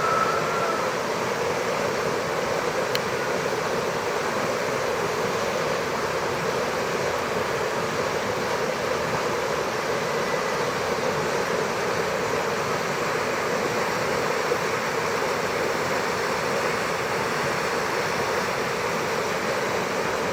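Fast, turbulent stream water rushing and churning over its bed: a steady, unbroken rushing sound.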